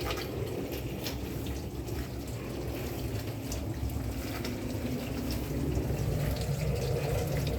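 Countertop dishwasher running: a steady rush of water spraying and filling inside it, over a low hum.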